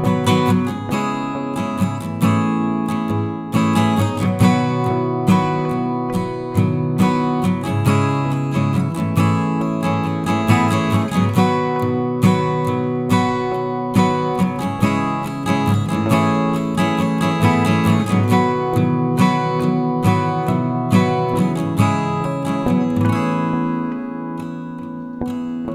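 Background music played on a strummed and plucked acoustic guitar.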